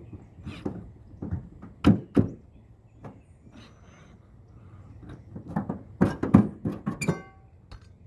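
Metal stovepipe knocking and clanking as it is forced down through a hole in the roof: a string of sharp knocks, the loudest about two seconds in and around six to seven seconds in, with a brief metallic ring near the end.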